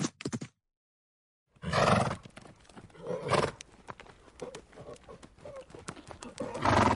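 A horse's loud calls: one about a second and a half in, another a little later, and a third near the end. Irregular hoof clopping runs between them, after a brief rhythmic clicking cuts off into a second of silence.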